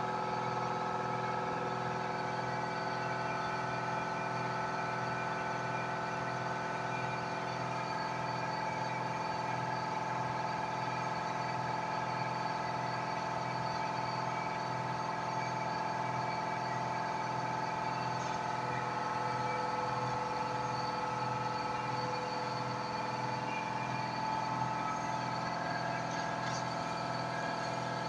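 Hobby diode laser engraver running while it engraves wood: a steady electric whine and hum from its stepper motors and the laser module's cooling fan. The whine holds several steady tones, and an extra lower tone comes and goes about two-thirds of the way through.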